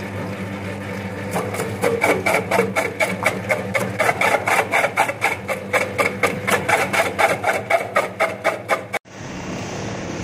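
Double-head vegetable cutter machine running with a steady motor hum. A potato is pressed into the feed opening and the blades give a fast, even run of sharp cutting strikes, about four or five a second. Near the end the sound cuts off suddenly and a steadier machine noise follows.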